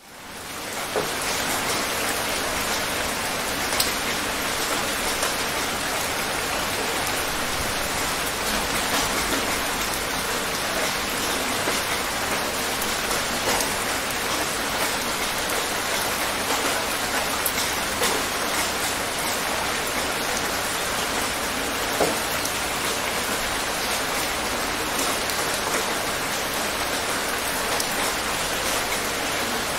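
Light rain falling steadily, a dense even hiss of drops with the odd single louder drop standing out. It fades in over the first second.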